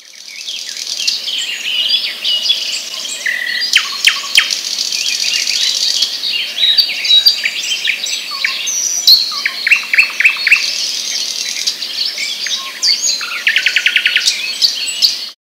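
A chorus of birds chirping and calling over one another, fading in at the start, with a fast repeated trill near the end, then cutting off suddenly.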